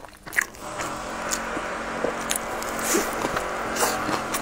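A person biting and chewing a crispy fried pancake wrap, with a sharp crunch about half a second in and scattered smaller crunches and wet chewing sounds. These sit over a steady background hum that sets in just after the first crunch.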